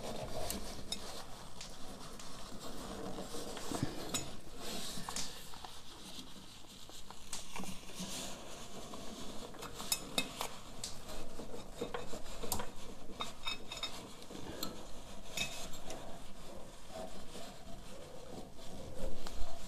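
Rubber-gloved hand rubbing and scraping against wires and components inside a Commodore PET's monitor chassis, with scattered small clicks and taps as a loose coil lead is worked back into place.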